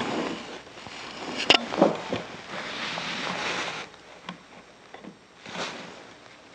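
Pine chair-frame pieces being handled and fitted together by hand on a workbench: a couple of sharp wooden knocks, then a scraping rub of wood lasting about two seconds, then a few faint handling sounds.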